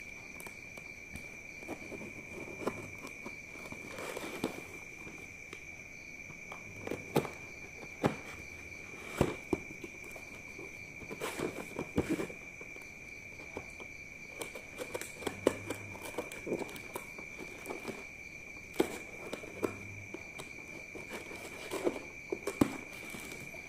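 Packing tape on a cardboard parcel being slit with a knife, with scattered scrapes, taps and knocks as the parcel is handled and turned on a wooden floor. A steady high-pitched tone runs behind it.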